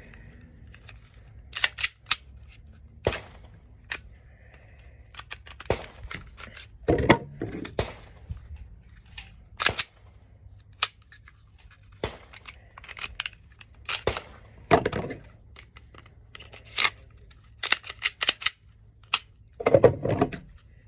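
Sharp metallic clicks and clacks of Glock Gen 5 pistol slides being taken off one frame and slid back onto another, a dozen or more scattered irregularly.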